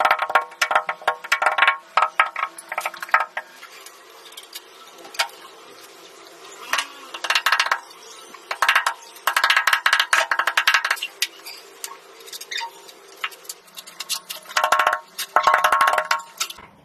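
Bursts of rapid clicking and tapping with a ringing, hard edge from tile-setting work, several clusters a few seconds apart with quieter gaps between.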